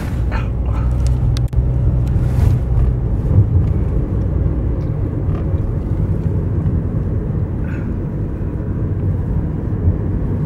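Car engine and road noise heard from inside the cabin of a moving car: a steady low rumble.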